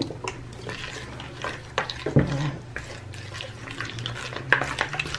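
Grated soap flakes being stirred into hydrogen peroxide in a plastic bowl with a disposable utensil: repeated wet scraping and clicking strokes against the bowl, over a steady low hum.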